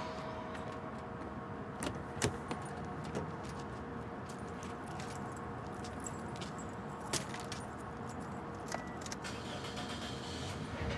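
Keys jangling, with a few sharp clicks and knocks around a car door, mostly about two seconds in and again about seven seconds in, over a steady low background hum.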